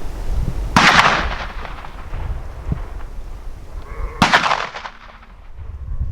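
Two shotgun blasts about three and a half seconds apart, each ringing out and fading in an echo, with wind buffeting the microphone at first.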